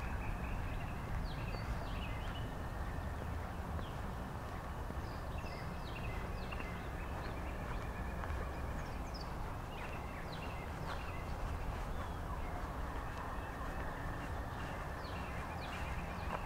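Several wild songbirds chirping and singing in spring: many short high chirps and quick falling notes, with a repeated trill, over a steady low rumble.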